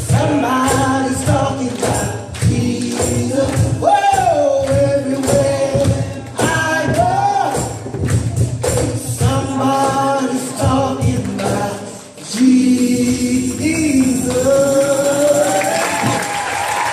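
Live gospel song sung over instrumental backing with a shaking tambourine. The singing rises into a long held final note, and applause begins to swell near the end.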